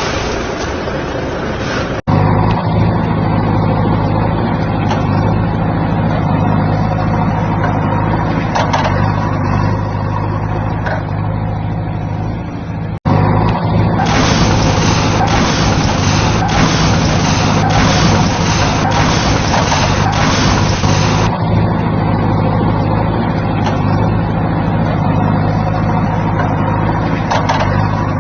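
Heavy vehicle engine running steadily at one pitch, with a low hum. It cuts out abruptly for an instant about two seconds in and again about thirteen seconds in. A loud hiss rides on top for several seconds in the middle.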